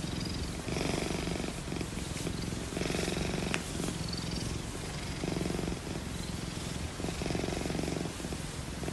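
Oriental Shorthair cat purring steadily while its belly is stroked, the purr growing stronger in stretches about every two seconds.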